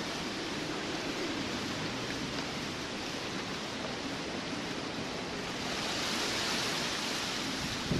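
A storm's steady rush of rain and wind, swelling and turning hissier from about five and a half seconds in.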